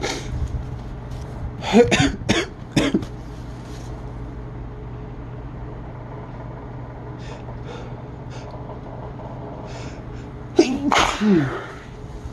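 A person sneezing: a quick run of sneezes about two seconds in, a few faint sniffs or breaths in the middle, then one more loud sneeze with a falling voiced cry near the end.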